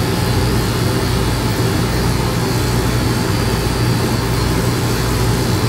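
Electric dog clippers running with a steady, unbroken buzzing hum while they trim a small dog's face.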